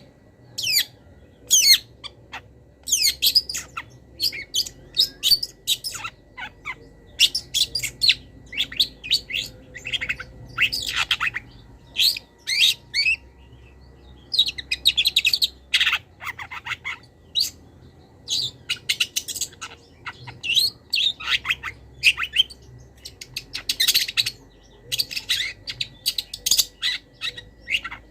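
Long-tailed shrike (pentet/cendet) singing a fast, varied run of short chirps, trills and harsh squawky notes, full of mimicked calls of wild birds.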